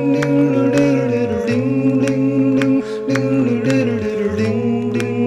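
A song: long held, chant-like notes from a low male voice, changing pitch every second or so, over a steady beat of light strikes about three a second.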